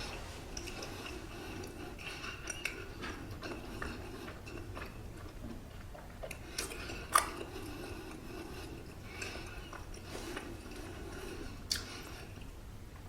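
A person chewing and biting a soft Korean steamed bun (hoppang) close to the microphone, with small wet mouth clicks throughout and a sharp click about seven seconds in.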